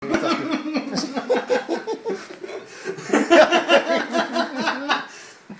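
People laughing in quick, repeated bursts, loudest about three seconds in, dying away near the end.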